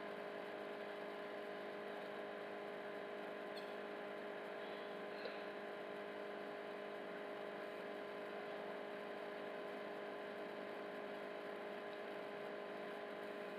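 Steady low electrical hum made of several steady tones, with nothing else but one faint tick about five seconds in.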